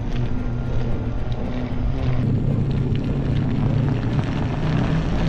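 Electric unicycle riding along a wet road: a steady low hum and rumble with tyre noise.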